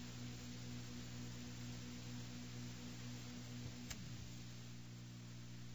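Steady electrical hum and hiss from an old tape recording, with no voice. About four seconds in there is a single sharp click, and one of the hum tones slides down in pitch and stops, like a break or edit in the tape.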